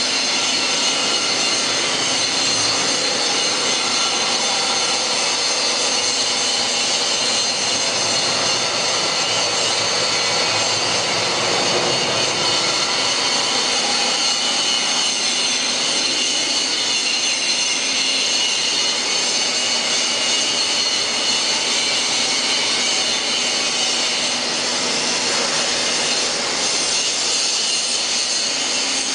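Steady machinery noise: an even drone with several high, constant whining tones that do not change.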